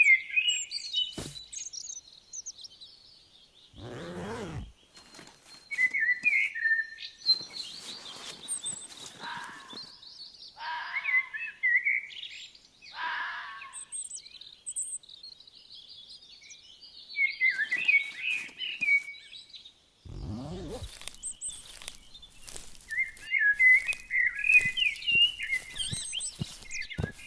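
Songbirds chirping and singing in short, scattered phrases from a forest-ambience sound effect. Two brief noisy sounds reaching down low stand out, about four seconds in and about twenty seconds in.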